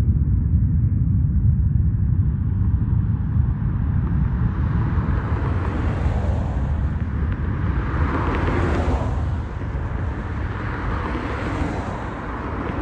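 Cars passing close by on the road, their tyre noise swelling twice, over a steady low rumble.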